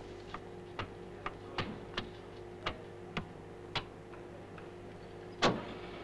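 Switches and knobs on a Hilger & Watts spectrometer console clicking as it is set up: about eight sharp, irregular clicks, then a louder click near the end as the start button is pressed. A steady hum runs underneath.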